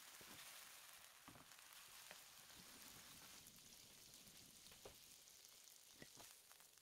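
Faint sizzling of fusilli, garlic and basil pesto frying in oil in a non-stick pan: a steady light hiss with scattered small pops.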